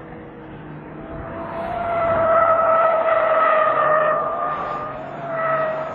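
Tyres of a Kia Morning (Picanto) race car squealing as it corners hard. The squeal holds one pitch, swells about two seconds in, dips near five seconds and starts again, with the car's engine running underneath.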